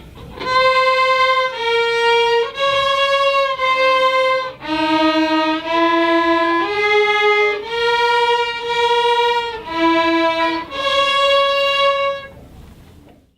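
Solo violin playing a slow melody of sustained, bowed notes, each about a second long with short breaks between them; the last note fades out near the end.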